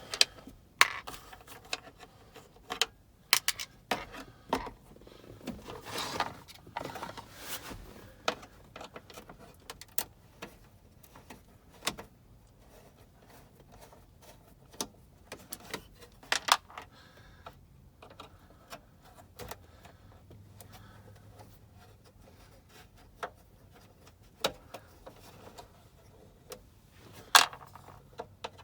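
Irregular clicks, taps and light rattles of hand work on a truck's plastic glove box latch: small screws and plastic parts being handled and removed.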